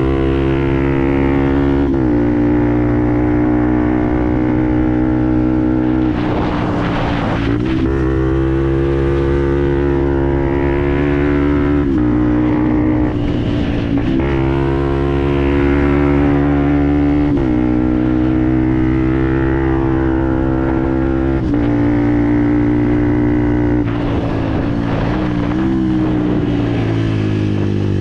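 Fantic Performance 125 Motard's single-cylinder four-stroke engine running through a GPR aftermarket exhaust, holding fairly steady revs whose note steps up and down several times. Twice a brief rush of noise rises over the engine.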